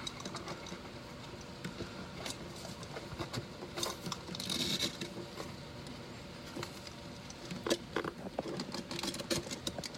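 A blade cutting through a subwoofer's stiff cone suspension and leads: scattered small clicks and scraping, with a longer scraping cut about four to five seconds in and a cluster of clicks near the end.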